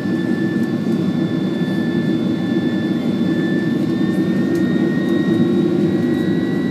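Steady jet engine and airflow noise inside the cabin of a Boeing 767 airliner in flight, heard from a front seat, with a thin high whine that rises slowly in pitch.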